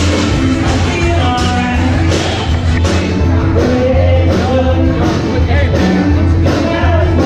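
Background rock music with a steady beat, a strong bass line and singing.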